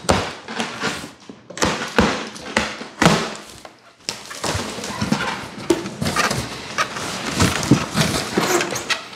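A cardboard shipping box being opened and its packing handled: irregular knocks and rustling in the first few seconds, then more continuous scraping and rustling with small knocks.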